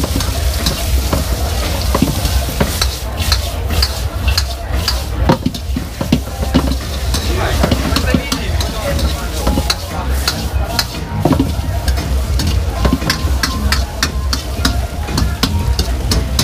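Metal wok spatula scraping and clanking against a steel wok as vegetables are stir-fried, with a steady sizzle of frying. There is a constant low hum underneath, and the clanks come faster near the end.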